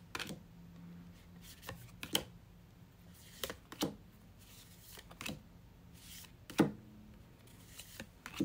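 Tarot cards being dealt one at a time from the deck onto a wooden surface: short, sharp card slaps and snaps at irregular intervals, about every second or two, the loudest about six and a half seconds in.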